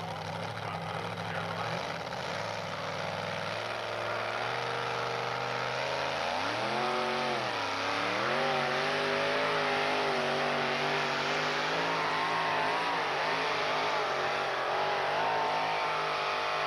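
Two-wheel-drive pickup truck engine under full load pulling a weight-transfer sled. It runs at low revs at first, climbs about four seconds in, dips and rises again around seven seconds, then holds high revs with a wavering pitch.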